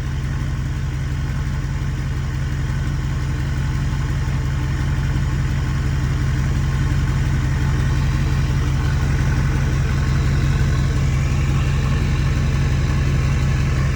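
Ford 6.4 Powerstroke twin-turbo V8 diesel idling steadily after a cold start on freshly installed turbos, with a faint turbo whine over the idle that rises briefly near the end.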